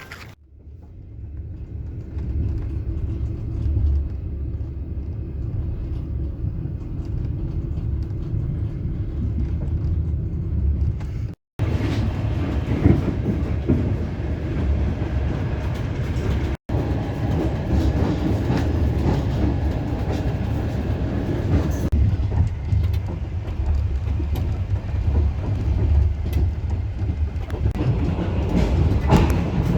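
Passenger train running along the line: a steady low rumble with the clatter of wheels over the rails. It drops out sharply for a moment twice, partway through.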